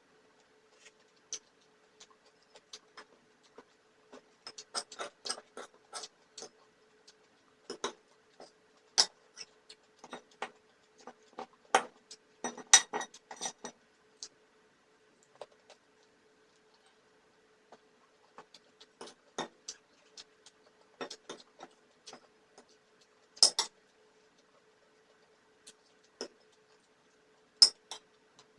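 Cutlery clicking and clinking against plates and glass while eating, in irregular clusters of sharp ticks with a few louder clinks. A faint steady hum sits underneath.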